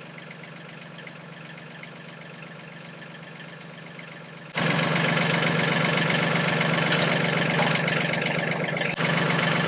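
Yanmar tractor's diesel engine running steadily, then suddenly much louder about four and a half seconds in. It stays loud to the end, with a brief dip near the end.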